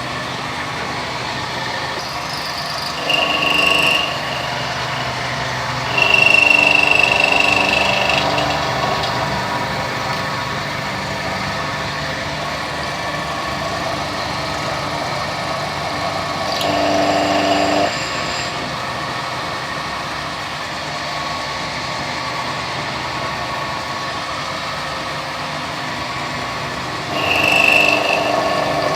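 Milling machine running, a 7 mm carbide end mill cutting a slot dry. The cut gets louder several times and gives a thin high squeal twice, the loudest stretch about six seconds in.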